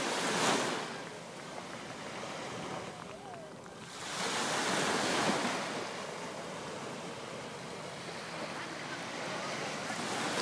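Small waves breaking and washing up the beach, with two louder surges, one about half a second in and a longer one around four to five seconds in, and a steady wash of surf between them.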